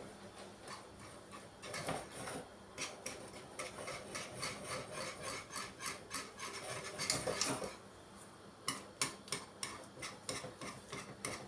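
A spoon stirring a thick cocoa sauce in a granite-coated pot, scraping along the bottom and sides with quick, irregular clicks and knocks against the pot.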